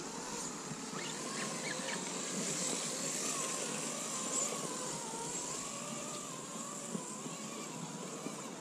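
Electric motor and gearbox of a radio-controlled scale rock crawler whining as it climbs over rock, the pitch wandering up and down with the throttle.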